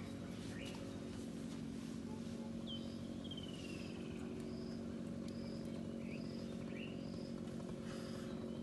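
Outdoor ambience of a steady low hum with birds calling over it: a short high chirp repeated about every three-quarters of a second from a few seconds in, a longer falling call about three seconds in, and a couple of short rising calls later.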